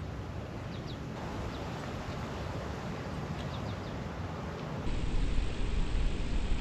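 Outdoor field ambience: steady wind noise with a few faint, short, high bird chirps. About five seconds in it cuts to a louder, deeper wind noise buffeting the microphone.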